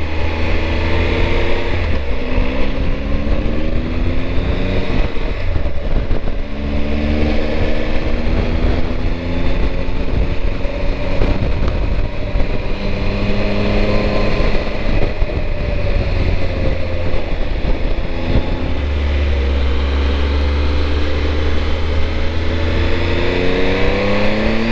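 Triumph Tiger 1200 motorcycle's three-cylinder engine heard while riding, the revs climbing and dropping several times through acceleration and easing off, over a steady low rumble and wind rush.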